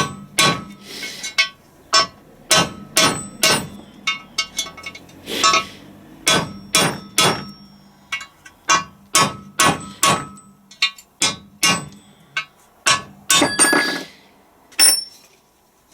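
Hammer driving a punch to knock a Timken taper roller bearing race out of an LT230 transfer box housing: a long run of sharp, ringing metal-on-metal strikes at an uneven pace, easing off near the end as the race comes free.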